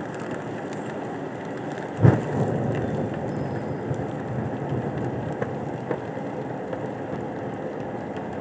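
Fire crackling and burning inside a washing machine packed with gasoline, spray paint cans and cardboard, with one loud bang about two seconds in.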